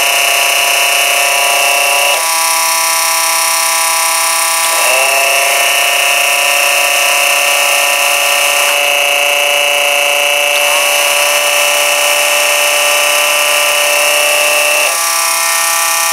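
Two small DC electric oil transfer pumps, one on 12 V and one on 24 V, running dry together with a steady high-pitched motor whine. The sound changes about two seconds in, and about five seconds in the high whine comes back with its pitch rising as a motor spins up. The high tone drops out again near the end. Of the two, the 24 V pump is the quieter.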